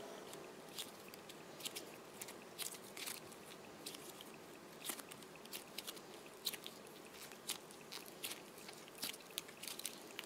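Soft, airy foam filling from a cut-open squishy toy being squeezed and pulled apart by hand, giving faint, irregular little crackles and pops.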